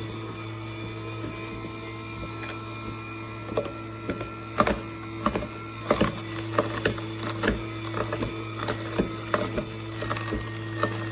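Slow masticating juicer running: a steady motor hum with many irregular sharp cracks and snaps, the sound of produce being crushed by the auger.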